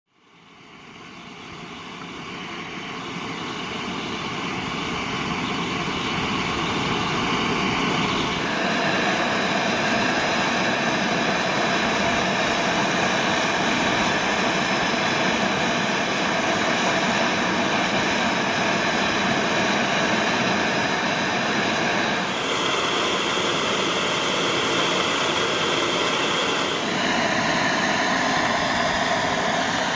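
Small model jet turbine, a JetsMunt VT80, running on the ground with a steady rush and a thin high whine. The sound fades in over the first several seconds and changes character abruptly a few times.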